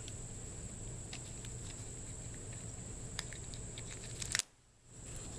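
Faint scattered clicks of a small metal hand-tool set being handled, over a steady low hum. The sound drops out briefly near the end.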